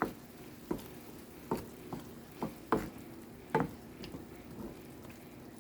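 Lamb testicle pieces frying in olive oil over low heat with a light sizzle. The pan is being shaken, giving a series of short clacks roughly once a second.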